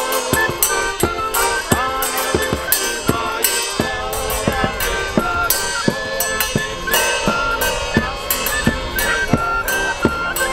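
Folk street band playing a carol tune while walking: a large drum with a cymbal mounted on top keeps a steady beat, and an accordion carries the melody.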